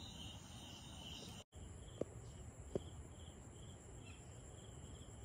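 Faint insect chorus: a steady high trill that breaks off at a cut, followed by rhythmic high chirps about two to three a second, with two soft ticks in between.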